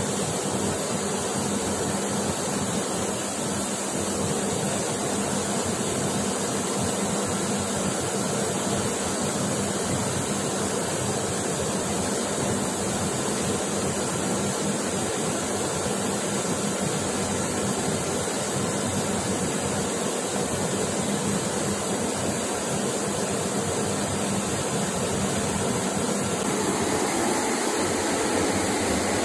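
Thermal metal-spray gun hissing steadily as it sprays stainless steel onto a turning impeller shaft, with a low hum underneath.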